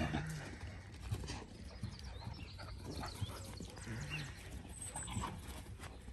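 Two dogs play-fighting and chasing each other across a lawn: irregular soft thumps and scuffs of running paws on grass, with two short low growls, one at the start and one about four seconds in.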